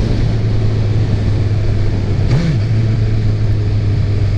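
Honda CB1000R's 998 cc inline-four running at a steady cruise on the move, under a steady rush of wind and road noise. Just over two seconds in, the engine pitch briefly rises and falls back.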